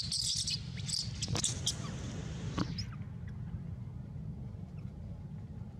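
A few short, high-pitched squeaks and clicks in the first three seconds, over a steady low rumble.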